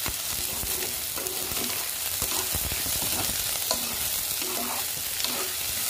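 Chopped onion frying in hot oil with mustard seeds in a pan, a steady sizzle, while it is stirred with a spatula that scrapes and clicks against the pan.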